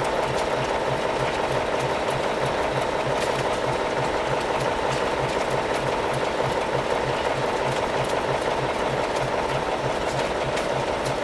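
Vintage horizontal single-cylinder stationary engine with twin flywheels running steadily. It has a regular low beat about three times a second over a continuous mechanical clatter.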